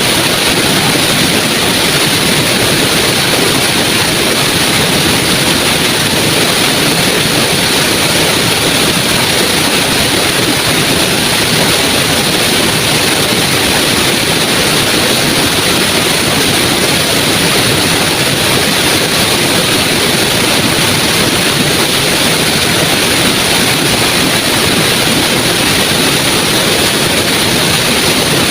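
Small waterfall and flowing stream, a loud, steady rush of water that holds even throughout.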